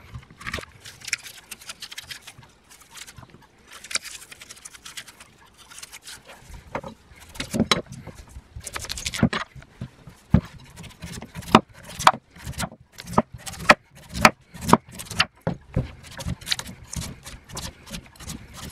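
Chef's knife working on a wooden chopping board, slicing through an apple and cutting the skin off a celeriac: a few scrapes of the blade at first, then from about halfway a run of sharp knocks, about two a second, as the blade strikes the board.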